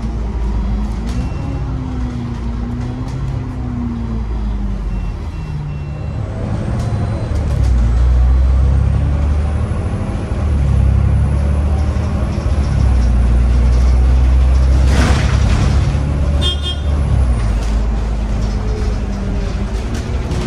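Cummins diesel engine of an Alexander Dennis Enviro 500 MMC double-decker bus, heard from inside the cabin as the bus drives, pulling harder from about seven seconds in, with a faint high whine rising in pitch. About fifteen seconds in there is a brief hiss of air, followed by a quick run of clicks.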